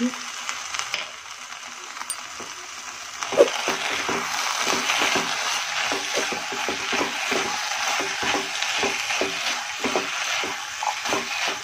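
Pav bhaji vegetables sizzling in a non-stick pan. About three seconds in, a wooden spatula starts stirring, a quick run of scrapes and knocks against the pan that lasts to the end.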